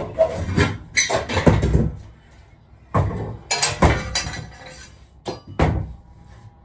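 Metal clanking and rattling in several bursts as a long metal bar is pulled loose and lifted inside a stripped bus body, ending with two sharp knocks.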